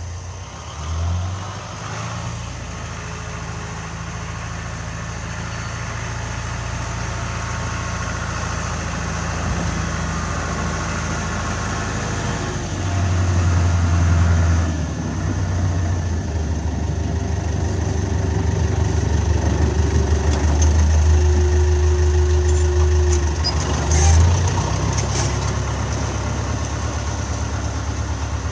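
John Deere 5410 tractor's diesel engine running steadily, its pitch shifting as the throttle and load change, with louder surges about thirteen and twenty-four seconds in.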